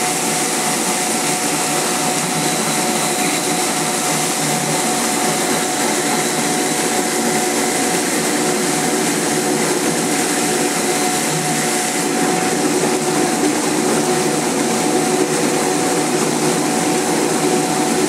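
DZ-1 radish washing machine running: its 200-watt electric motor spins two brush rollers under a water spray, making a steady whir with a constant hum and whine over the hiss of spraying water as daikon radishes are scrubbed.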